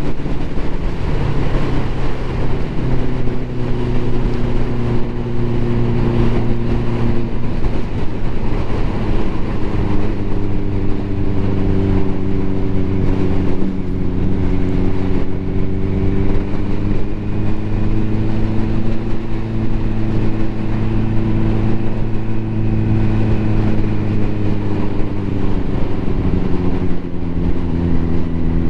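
Ducati motorcycle's four-cylinder engine running under way at a steady cruise, its pitch slowly rising and falling. The pitch drops about a second in as it shifts up a gear.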